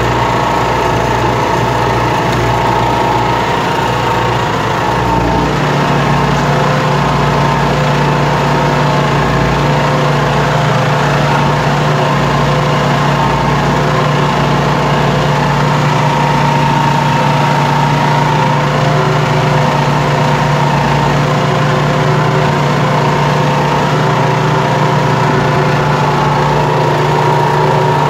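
Massey Ferguson 3095D tractor's diesel engine running steadily while pulling a four-bottom plough through a field, heard from the driver's seat. The engine note shifts slightly about five seconds in, then holds steady.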